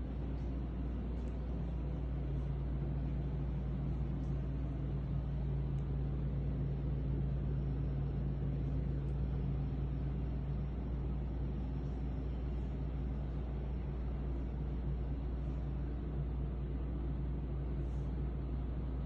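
Steady low hum and rumble with a constant droning tone, unchanging throughout.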